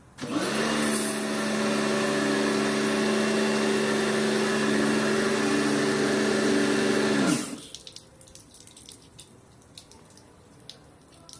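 Electric motor and pump of a Kärcher pressure washer starting up when the trigger is pressed, running steadily for about seven seconds, then winding down and stopping. Faint water drips follow.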